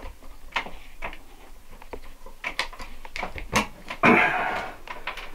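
Scattered small clicks and snips of wire strippers working electrical wire at a metal ceiling box. About four seconds in comes a louder rushing noise lasting about half a second.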